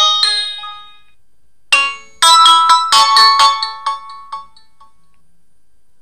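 Preloaded ringtones of an Alcatel OneTouch SpeakEasy phone. A chiming melody fades out in the first second, then after a short pause a brief bright jingle of quick bell-like notes plays and dies away a little past halfway.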